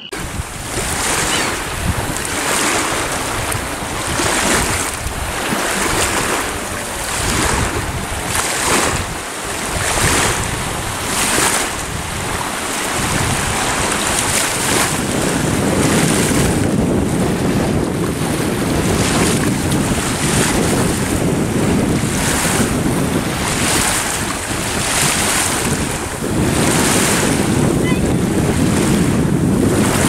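Strong wind buffeting the microphone over choppy lake water, with waves splashing in surges about once a second.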